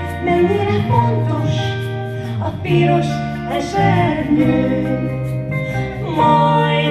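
Two women singing a song together into microphones, accompanied by an electric guitar.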